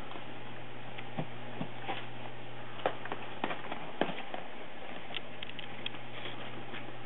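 Cat chewing at and tugging tissues in a tissue box: irregular small clicks and papery crinkles, bunched around the middle, over a steady low hum.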